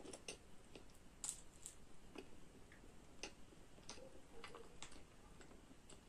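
Faint, irregular mouth clicks and smacks of someone chewing soft cream pastry, close to the microphone.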